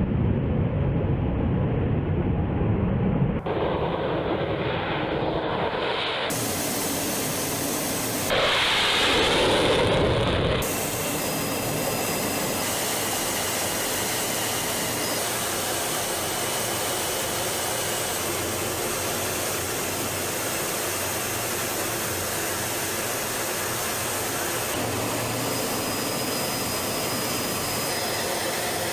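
Jet aircraft engine noise. For the first few seconds the S-70 Okhotnik drone's jet engine gives a deep low rumble on the runway. After abrupt cuts and a louder stretch around nine to ten seconds in, a steady, even rushing noise of jets in flight runs for the rest.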